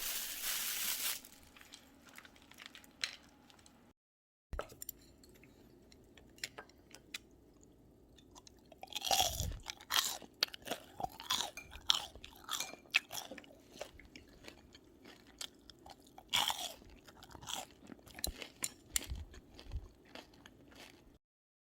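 A person biting into and chewing crispy potato-starch-coated fried tofu (dubu-gangjeong), giving irregular crunches. The bites are loudest in two bouts, about nine and sixteen seconds in.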